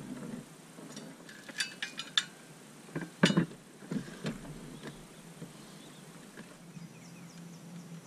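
Metal gear being handled on a boat's bow: a quick run of light metallic clinks, then a louder knock and a few softer knocks, with faint background after.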